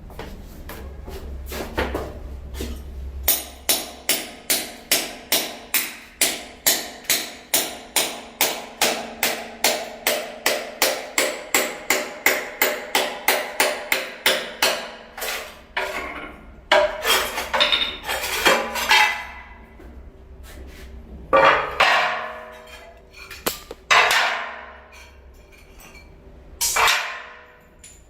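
Hammer tapping on tile in quick, even strokes, about three a second, for around twelve seconds. After that come a few separate, louder knocks with some scraping.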